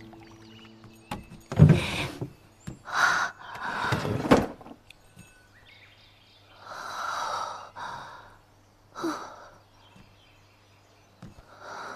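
A string of short scattered knocks and rustling noises with quiet between them; the loudest, about two seconds in, carries a heavy low thud.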